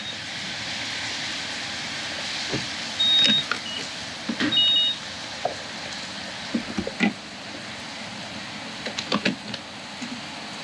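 Self-service gasoline pump at work: a steady hiss, with short high electronic beeps from the pump at the start, about three seconds in and about four and a half seconds in, the last two each a high tone then a lower one, among scattered clicks and knocks of nozzle handling.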